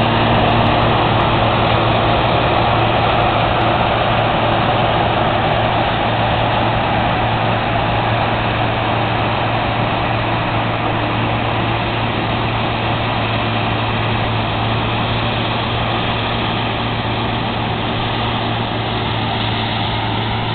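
Claas Mega 208 combine harvester running while harvesting oilseed rape: a steady drone of engine and threshing machinery with a constant low hum, slowly getting quieter as the combine moves away.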